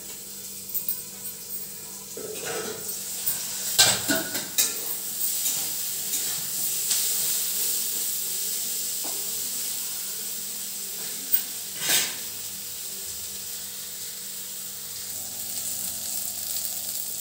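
Vegetable pieces sizzling in hot oil in an iron kadai, stirred with a metal ladle. The sizzle swells a couple of seconds in, and the ladle scrapes and clanks against the pan a few times, sharpest about four seconds in and again near twelve seconds.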